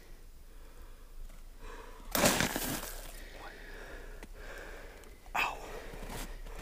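A man breathing hard, out of breath, with a loud heavy breath about two seconds in and a shorter one near the end.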